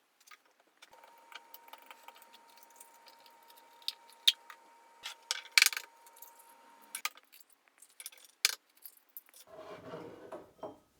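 Scattered sharp clinks and taps of kitchen utensils against a mixing bowl while the banana, buttermilk, eggs and butter are combined. A faint steady hum runs under it until about seven seconds in, and a short duller scraping noise follows near the end.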